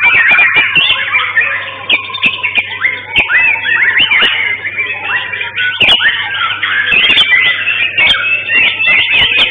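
White-rumped shamas (murai batu) singing in full song: a rapid, unbroken stream of varied whistles, chirps and trills, several birds overlapping, with a few sharp clicks among them.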